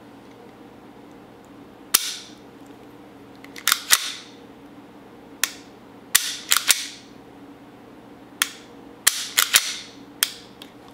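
Unloaded Beretta 92 pistol being dry-fired and worked by hand: about a dozen sharp metallic clicks in small groups, the hammer snapping down on the trigger break and the action being re-cocked.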